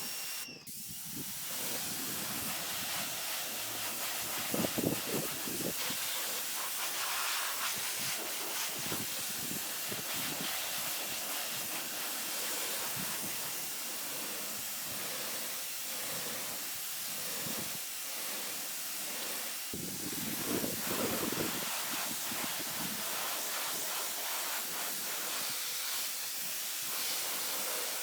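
High-pressure water spray from a Sun Joe SPX3000-QW2 electric pressure washer, hissing steadily against a surface. There is a brief break about half a second in and louder swells around five and twenty seconds in.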